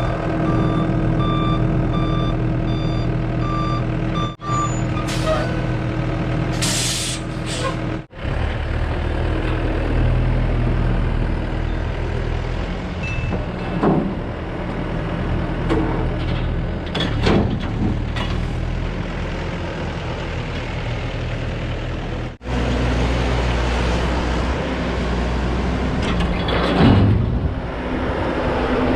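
Excavator's diesel engine running steadily under work, with its alarm beeping in an even repeated pattern for the first few seconds. Short sharp hisses and squeals break in now and then.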